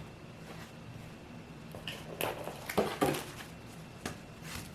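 Light handling noises from unboxing: a handful of short knocks and rustles as items and packaging are moved about, with quiet gaps between them.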